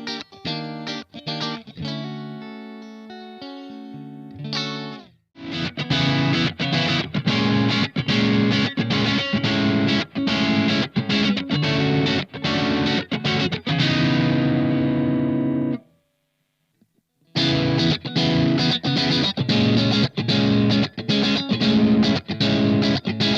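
SLX Hawk Classic 22 HSS electric guitar played through an amplifier. For about the first five seconds it plays picked single notes that ring and die away. Then comes fast rhythmic chord playing, which cuts off suddenly past the middle and starts again after about a second and a half of silence.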